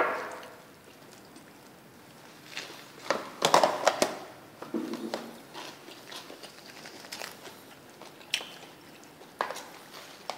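Someone biting into and chewing a rice-paper fresh spring roll dipped in sauce. The bites and chews come as a cluster of crackly mouth clicks about three to four seconds in, then as scattered single clicks.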